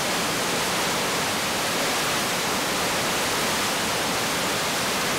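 A 15-metre waterfall plunging into a narrow rock gorge: a steady, even rush of falling water.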